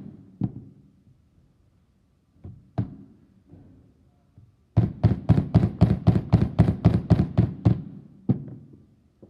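Soft hammer striking a soldered silver ring band, a few scattered blows and then a quick run of about five blows a second: the band is being hammered open so it will fit on the ring mandrel.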